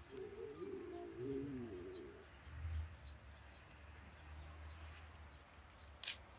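A dove cooing, a low wavering call lasting about two seconds, with faint high bird chirps scattered throughout. A single sharp click near the end.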